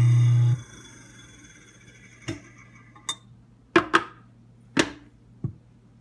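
InSinkErator Badger 5 half-horsepower garbage disposal, newly installed, running with a steady electric-motor hum and switched off about half a second in. After that come several short, sharp clicks and knocks.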